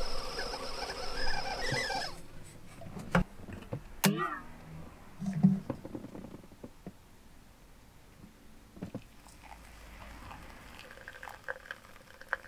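Stovetop whistling kettle whistling off the boil, a wavering shrill whistle that dies out about two seconds in once the hot plate is switched off. A few clicks and knocks follow as the kettle is handled, and near the end hot water is poured onto coffee grounds in a paper filter.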